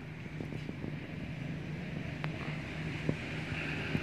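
Steady low mechanical hum with wind noise on the microphone and a few faint clicks; a hiss swells briefly near the end.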